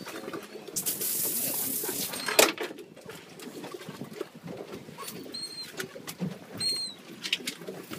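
Aboard a small boat at sea while a fish is fought on rod and reel: a rush of wind on the microphone for about a second, a sharp knock shortly after, then two short high chirps in the second half.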